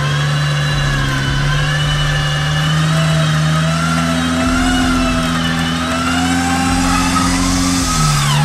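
Jeep Wrangler's engine running under load while its front electric winch whines, pulling the Jeep up out of a muddy rut. The engine note steps up about halfway through and drops near the end, and the higher whine wavers up and down in pitch.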